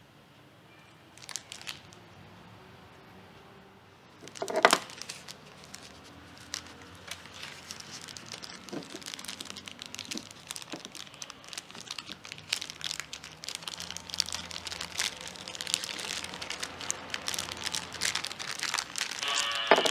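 Clear plastic packaging bags crinkling and rustling as they are handled and opened. Two small crackles come about a second in, a single loud crackle follows about four and a half seconds in, and then a steady crinkling builds louder toward the end.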